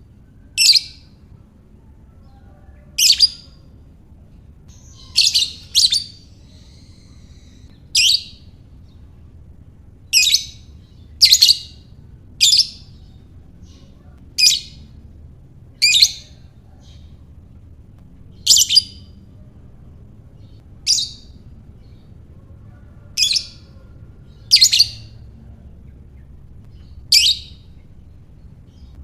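Lovebird giving short, shrill, high-pitched chirps, one every one to two and a half seconds, about fifteen in all, over a faint low background hum.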